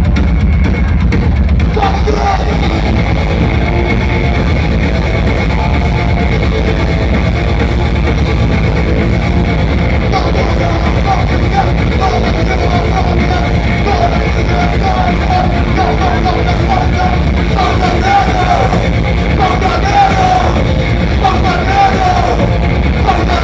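Live punk rock band playing loud, with distorted electric guitars, bass and drums; shouted vocals come in about ten seconds in.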